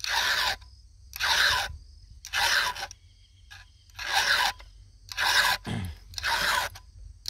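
Round chainsaw file rasping across the steel cutter teeth of an Oregon saw chain: six separate sharpening strokes, about one a second, with short pauses between.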